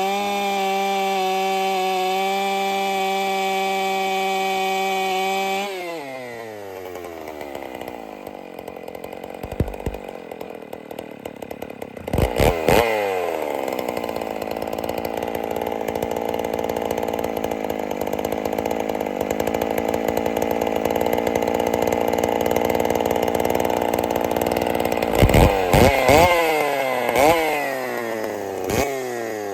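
Two-stroke chainsaw held at full throttle with a steady high pitch, then dropping to idle about six seconds in. Near twelve seconds it revs up again and runs with a rougher, lower note under load through a cut. Near the end it gives several quick revs up and down.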